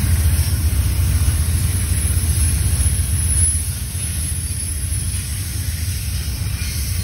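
Double-stack intermodal train's container well cars rolling past, a steady low rumble of wheels on rail that eases a little about halfway through.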